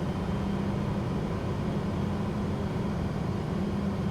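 Steady in-flight cockpit drone of a Pilatus PC-24 twin-turbofan business jet: engine and airflow noise with a steady low hum that weakens a little in the middle.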